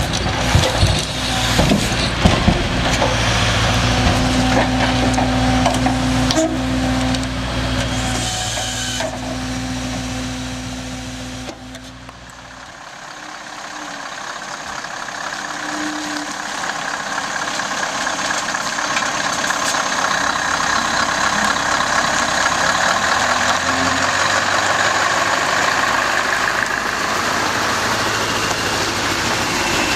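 Scania R580 V8 timber truck engine running steadily to drive its Epsilon Palfinger crane during log loading, with a few sharp knocks. After a sudden drop about twelve seconds in, the loaded truck drives past, its engine and tyre noise growing louder and then staying loud.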